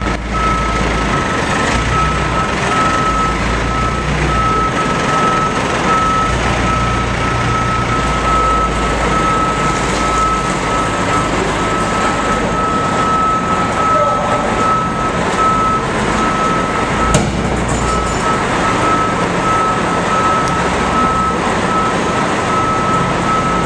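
A vehicle's reversing alarm beeping steadily over a heavy engine running. A single sharp knock about seventeen seconds in.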